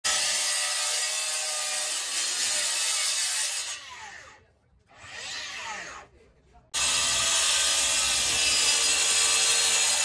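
DeWalt concrete saw cutting into a concrete wall, a loud steady grinding whine. The sound falls away for about three seconds near the middle, then the cutting comes back at full loudness about two-thirds of the way in.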